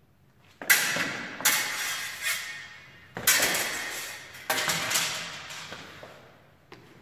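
Fencing swords clashing: about six sharp metallic strikes, each ringing out and fading over most of a second, with a few light clicks near the end.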